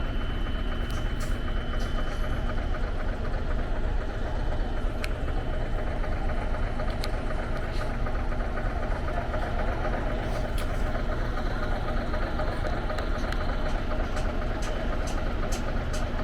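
Steady engine noise of idling vehicles or machinery in busy street surroundings, with a few light clicks scattered through.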